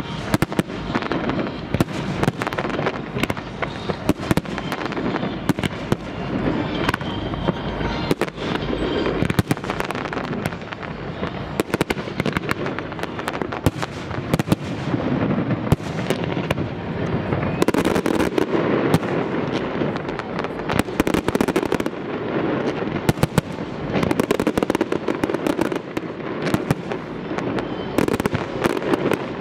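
Fireworks display: aerial shells bursting in a dense, continuous barrage, many sharp bangs overlapping one another without a pause.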